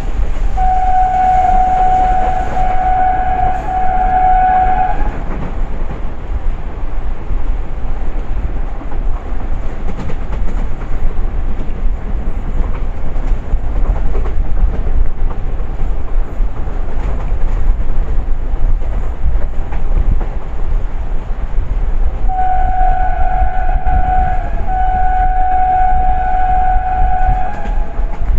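WAG-9 electric locomotive's horn sounding long blasts over the running noise of the moving train. The horn sounds for about four seconds near the start, then twice in long blasts back to back near the end, with the rumble and clickety-clack of the train in between.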